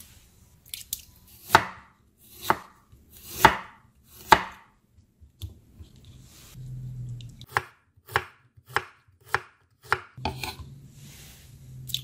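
Kitchen knife chopping through fresh ginger onto a wooden cutting board. It makes four separate cuts about a second apart, then a quicker run of about six cuts in the second half.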